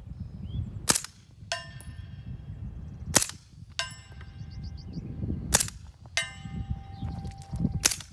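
Four shots from a suppressed 9mm AR carbine firing 158-grain subsonic rounds, about two seconds apart. Three of them are followed about half a second later by the clang of the bullet striking a steel plate, which rings on for a second or more.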